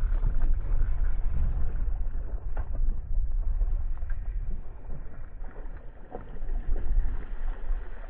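Wind rumbling on the microphone over open water, with water sloshing and brief splashes as a hooked fish thrashes at the surface.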